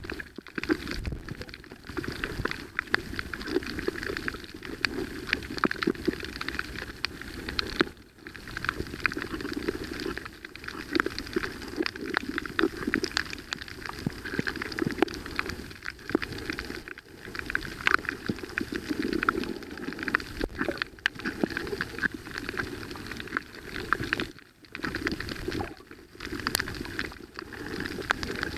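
Underwater sound heard through a camera held below the surface over a coral reef: a dense, steady crackle of many tiny clicks over a rushing noise. It dips briefly several times.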